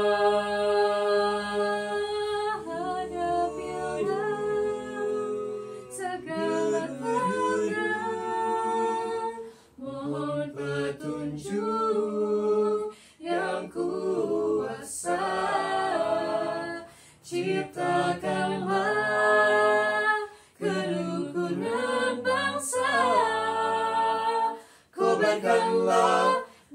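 A four-voice mixed a cappella group, two men and two women, singing in close harmony without accompaniment: held chords that shift from phrase to phrase, with brief breaks between phrases.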